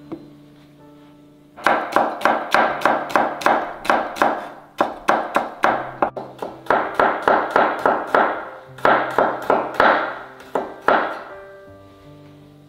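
Chef's knife slicing shallots on a wooden cutting board: quick, even strokes about four a second, in several runs starting a second or two in. Background music with sustained tones plays underneath.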